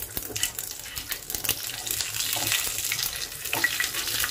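Nigella seeds (kalo jeera) and a green chilli sizzling and crackling in hot mustard oil in a tawa as a tempering, stirred in the pan.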